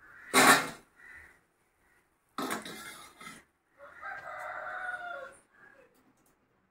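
Steel slotted spoon clattering on a steel plate as fried egg bajjis are tipped onto it: a loud clank about half a second in and a longer rattle a couple of seconds later. Then a rooster crows once, for about a second and a half.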